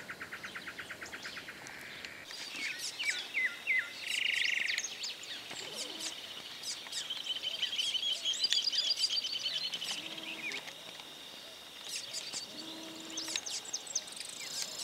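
Several small birds calling. A fast, even series of pulsed notes comes first. Scattered short chirps and a rapid high trill in the middle follow, with a thin steady high tone behind.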